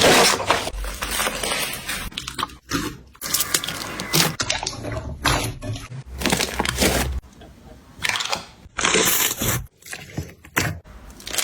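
Slime being squeezed and pressed by hand, giving irregular bursts of sharp clicks and crackles with short pauses between handfuls.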